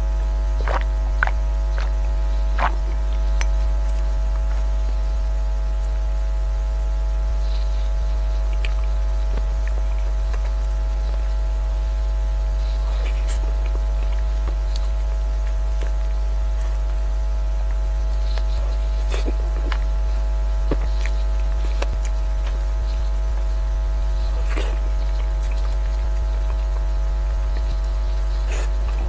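Steady low electrical mains hum with a buzz of evenly spaced overtones, loud and unchanging. Faint scattered clicks and smacks of eating cake with a spoon come through over it.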